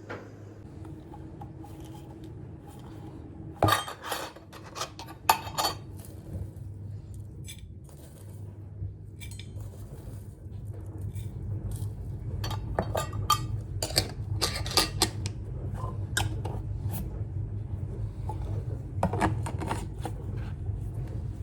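Dishes and cutlery being handled, with scattered clinks and knocks in several clusters, over a steady low hum that grows louder about halfway through.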